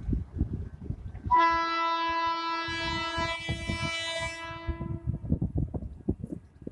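Indian Railways WAG-5 electric locomotive's horn sounding one long blast as the train approaches, starting about a second in and lasting about four seconds. Wind buffets the microphone throughout.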